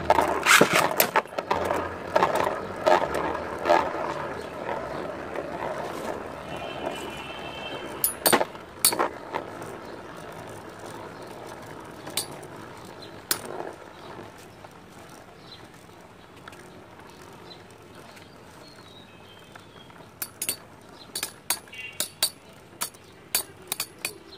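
Two metal-wheel Beyblade tops, Rock Leone against Fang Leone, spinning in a clear plastic stadium. It opens loud as they are launched and whirl around the bowl, then settles into a steady spinning hum. Sharp metallic clinks as they collide come a few times in the middle, then in a quickening run over the last few seconds.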